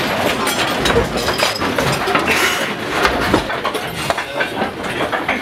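Crowd hubbub in a packed antique tool shop: many overlapping, indistinct voices, with scattered clinks and knocks of old metal hand tools being picked up and put down.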